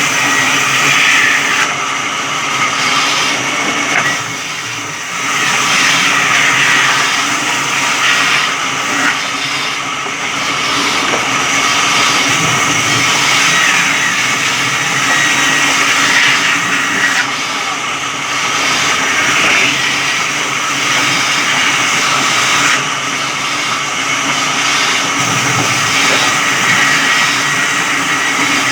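Electric sawmill running and cutting wood: a steady mechanical drone with a harsher rasp of the blade in the timber that swells and eases every few seconds, dipping briefly about four seconds in.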